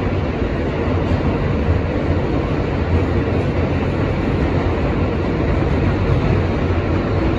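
R160 subway car running at speed, heard from inside the car: steady noise of the wheels on the rails and the car's running gear.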